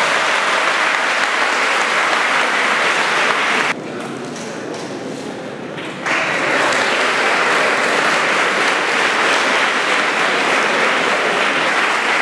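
Audience applauding steadily. About four seconds in, the clapping drops abruptly to a quieter level for about two seconds, then comes back just as suddenly.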